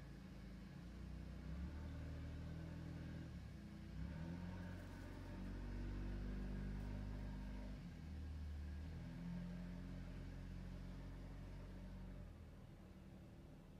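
Low engine hum whose pitch shifts up and down every second or two. It grows louder about a second and a half in and drops back near the end.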